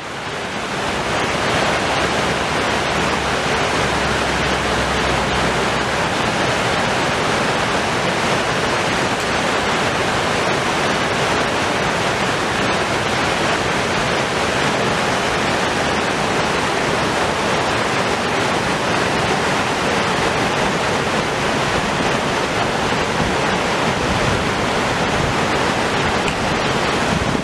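Floodwater of the Katerles river rushing fast and steadily, a loud even roar of water.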